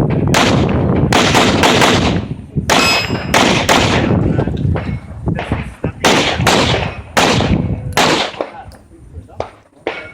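Handgun firing a fast string of a dozen or more shots in quick pairs and short runs, each with a short echo. There is a brief metallic ring about three seconds in, and the shooting stops a little before the end.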